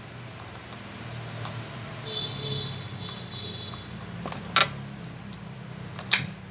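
Two sharp clicks of small repair tools or phone parts against the work surface, about a second and a half apart, over a steady low hum.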